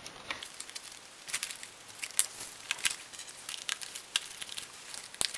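Cardboard body being fitted onto a Lego Technic truck chassis by hand: irregular light clicks and cardboard rustling.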